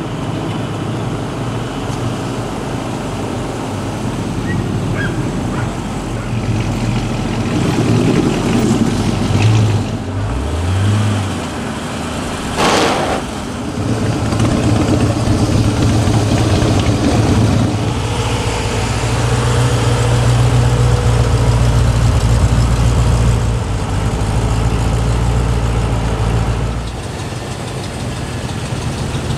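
American muscle cars' V8 engines burbling at low speed as they roll past one after another, with a short rev about ten seconds in and a brief sharp crack soon after.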